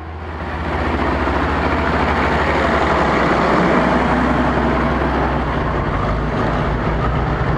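Schlüter tractor's diesel engine running steadily as the tractor drives slowly past, swelling over the first second as it comes close.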